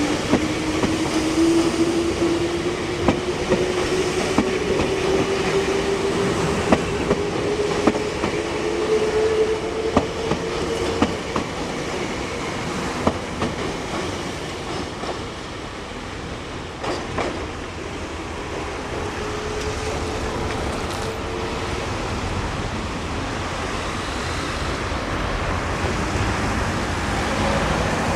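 Meitetsu electric train running over the rails, its wheels clacking over rail joints at a steady rhythm, with a smooth rising whine from the traction motors as it gathers speed. The clacking and whine fade toward the middle and the sound settles into a steadier running noise.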